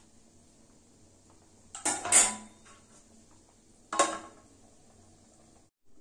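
Metal cookware clattering: a short run of clatters about two seconds in, then a single clank at about four seconds as a flat metal plate is set over a metal kadai as a lid.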